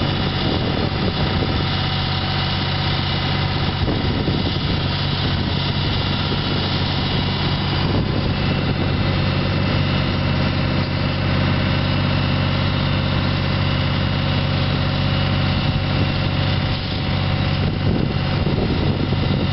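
Tractor engine running steadily at low speed while it pulls a two-row vegetable transplanter, with an even low hum. The sound cuts off abruptly at the very end.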